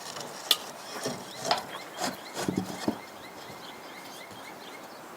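A few sharp knocks and clicks in the first three seconds, over a faint steady outdoor background with a small high chirp repeating a few times a second.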